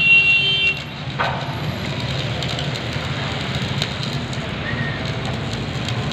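Electric arc welding on a steel beam: the steady crackling hiss of the arc. A brief high-pitched tone sounds at the very start.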